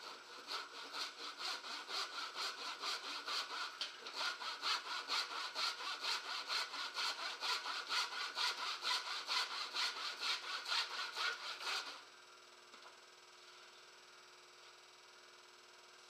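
Handsaw cutting across a wooden beam, in fast, even back-and-forth strokes of about three a second, stopping abruptly about twelve seconds in.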